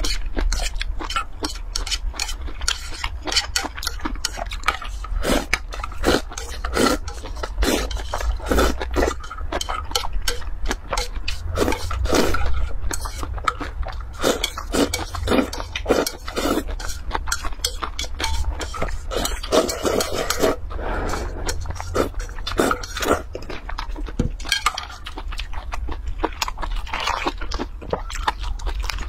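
Close-miked eating sounds: wet slurps and chewing smacks as spicy sauced noodles are eaten, in a dense run of short clicks, with chopsticks scraping a metal bowl. Partway through, the sauce is drunk straight from the tipped bowl.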